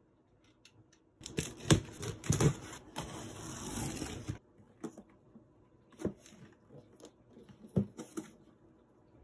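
A cardboard box's packing tape is slit along the seam with a utility knife and the tape pulled, giving a loud tearing, scraping noise with a few sharp clicks. It starts about a second in and lasts about three seconds. Then come scattered soft knocks and rustles as the cardboard flaps and box are handled.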